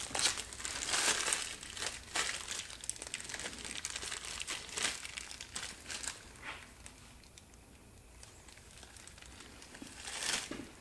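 Plastic zip-top bag crinkling in the hands as it is squeezed and handled, in bursts over the first six seconds, then again briefly near the end.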